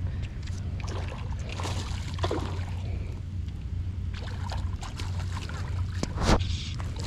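Hooked peacock bass thrashing and splashing at the surface of the water, in irregular splashes with one loud splash about six seconds in, over a steady low rumble.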